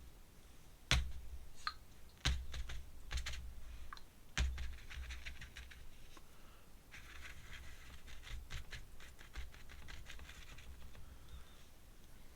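Art tools being handled on a desk while searching for a brush: three dull knocks about one, two and four seconds in, among many small clicks and clatters, then a stretch of scratchy rubbing and rustling just past the halfway point.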